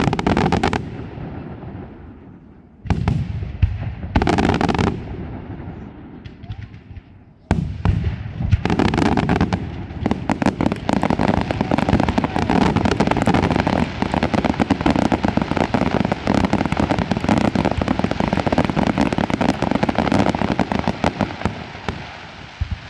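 Aerial fireworks display: a few loud shell bursts in the first five seconds, then from about seven and a half seconds a dense, continuous barrage of rapid bangs and crackle that tails off near the end.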